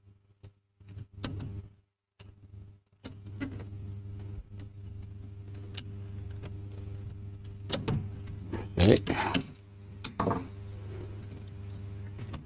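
Small clicks and knocks of hands working the plastic clips and casing of a car radio being taken apart, over a steady low hum that starts about three seconds in.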